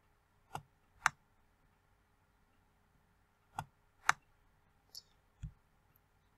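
Computer mouse button clicking: six short clicks in three pairs, the two clicks of each pair about half a second apart, the last pair fainter.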